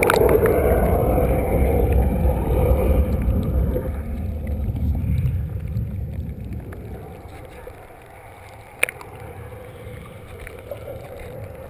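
Hot tub jets churning the water, heard underwater: a muffled low rumble of bubbling, loudest for the first few seconds and then steadier and quieter. A single sharp click comes late on.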